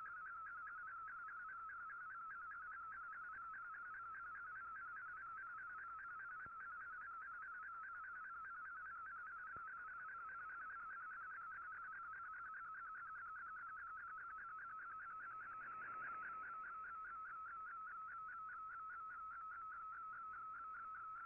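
Shortwave MFSK picture transmission from the Shortwave Radiogram, demodulated by an Icom IC-R8600 receiver: a steady data tone with a fast, even flutter, as an image is being sent. A faint hiss of static swells briefly about two-thirds of the way through.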